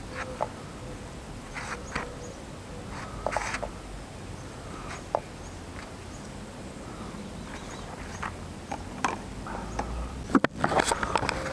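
Scattered light clicks and rustles of a gloved hand handling a plastic oil filter housing with its new paper filter, setting it down on cardboard. A bit over ten seconds in, a louder cluster of knocks and rubbing as the camera is picked up and moved.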